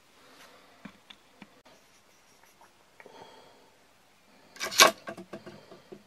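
Wooden bird pole trap being set off: a few light clicks and taps of wooden sticks, then about four and a half seconds in a loud clatter as the trap springs, followed by several lighter knocks.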